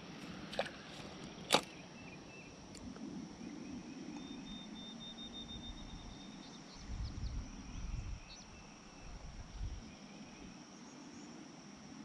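A spinning rod is cast: a quick swish, then a few sharp clicks from the reel in the first two seconds, the loudest about one and a half seconds in. Afterwards there is steady creek-side background with a faint high insect hum and a few low rumbles around the middle.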